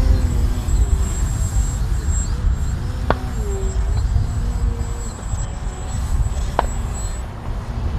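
Strong wind buffeting the microphone as a low rumble, with the thin whine of the MX-2 RC plane's brushless electric motor in flight, its pitch sliding up and down with throttle and passes. Two sharp clicks cut through, a little over three seconds in and again about three and a half seconds later.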